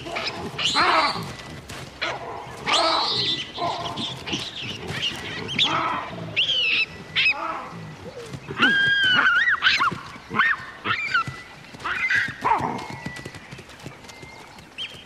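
Baboons screaming during a fight: repeated high-pitched screams that rise and fall, with short gaps between them. These are distress screams of a baboon being attacked by others.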